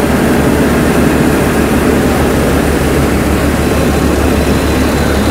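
Eicher 333 three-cylinder diesel tractor engine held at about 1400 rpm, belt-driving a mini rice mill that is hulling paddy; engine and mill run together as a loud, steady mechanical drone with a constant low hum.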